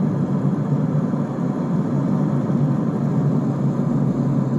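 Steady low rumble of a Boeing 777-300ER's GE90-115B turbofan engines at takeoff thrust.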